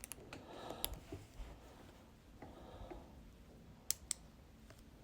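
Magnetic metal buckle clasps snapping shut with sharp clicks: a pair at the start, one just before a second in, and another close pair about four seconds in, with faint rustling of knitted fabric between.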